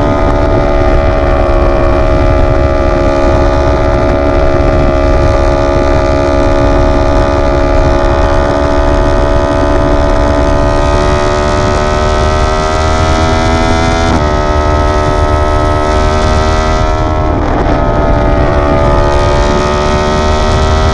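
Yamaha R1 sport bike's inline-four engine running under way at steady revs, its pitch drifting slowly, with a sudden change in engine note about fourteen seconds in and a brief dip and recovery in revs a few seconds later. A steady low rumble of wind on the microphone lies under it.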